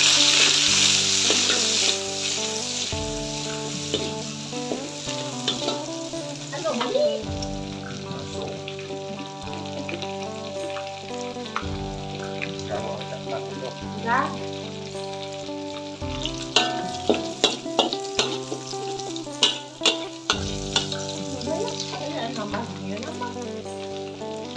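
Chopped ingredients sizzling in hot oil in an aluminium wok while being stir-fried with a metal spatula. The sizzle is loudest in the first couple of seconds, then settles lower, with sharp clicks of the spatula striking the wok, most of them in the second half.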